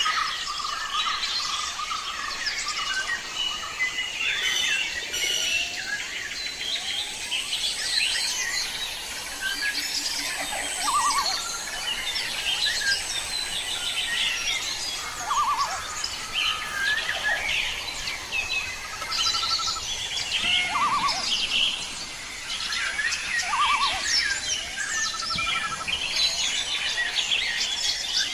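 Several small birds chirping and twittering at once: a dense mix of short, high chirps with a few brief trills scattered through.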